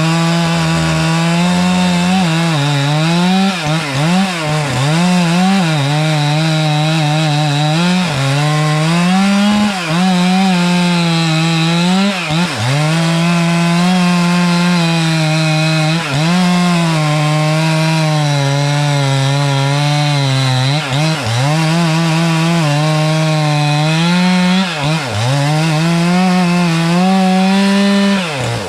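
Two-stroke chainsaw at full throttle, cutting knots off an oak log; its pitch sags again and again as the chain bites in under load. It revs up at the start and is let off at the end.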